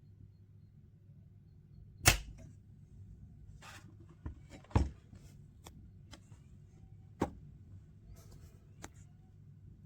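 Scattered sharp clicks and knocks, the loudest about two seconds in, another pair near five seconds and one at about seven seconds, over a faint steady low hum.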